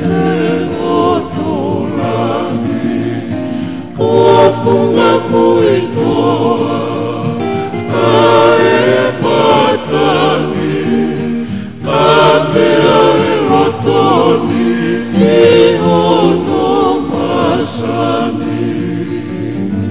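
Tongan kava-club (faikava) song: a group of voices singing in harmony over guitar, in phrases of a few seconds.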